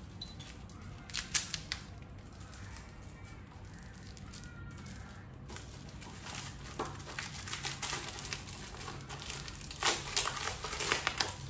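Brown packing tape and clear plastic wrapping being peeled and torn off the ends of a motorcycle paddock stand's arms, crinkling and crackling. Sharper rips come about a second in and again near the end.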